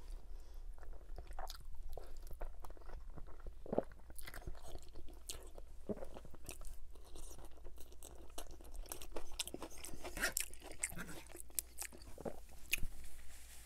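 Close-miked eating of a big mouthful of spaghetti bolognese: wet chewing and slurping of the pasta strands, with many small, sharp mouth clicks and smacks.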